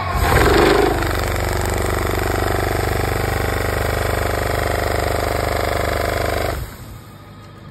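Olive trunk shaker machine running hard with its clamp on the tree trunk, a loud steady engine-and-vibration drone that swells briefly in the first second. About six and a half seconds in it cuts back suddenly to a much quieter run as the shaking stops.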